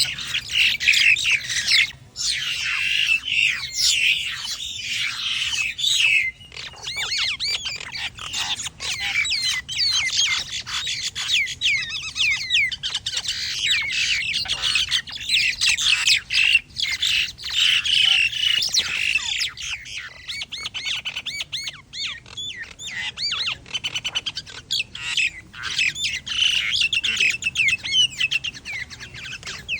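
Several birds squawking and chattering harshly in a fight, with rapid overlapping calls that run on without a break.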